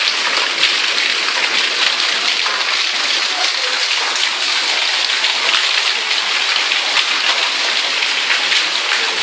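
Heavy rain falling steadily, with rooftop rainwater from a harvesting system pouring down a pipe into a well. It makes an even hiss with no let-up.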